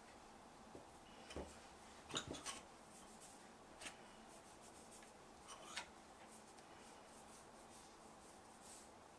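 Faint handling sounds: rubbing and a few soft taps and scrapes as skewered sausages are rolled in flour in a metal tray, the loudest cluster about two seconds in.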